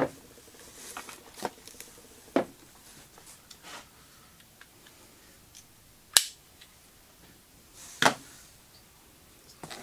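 Scattered clicks and knocks of hardware being handled and set down on cardboard, among them NEMA-style stepper motors placed on a box lid. A single sharp click a little past the middle is the loudest, followed a couple of seconds later by a duller knock.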